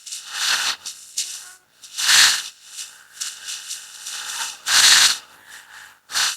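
Woolly ostrich creature sound effects: a run of raspy, hissing calls, the loudest about two seconds in and again near five seconds, with a short one at the end.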